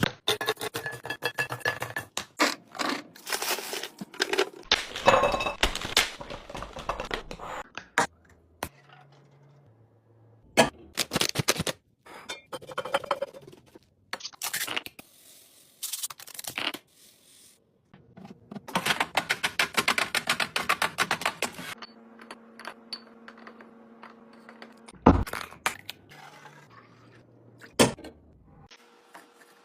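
Household items being handled and set down one after another: irregular thunks, scrapes, clinks and rustling of packaging, with two sharp knocks near the end.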